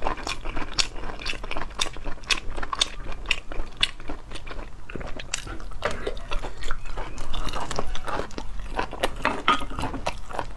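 Sea snail meat being chewed close to a clip-on microphone: a steady run of wet mouth clicks and crunchy bites, several a second.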